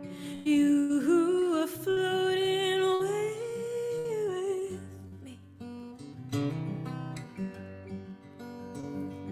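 Acoustic guitar playing, with a wordless sung vocal line held over it for the first half, bending and wavering in pitch. The voice stops a little under five seconds in and the guitar carries on alone.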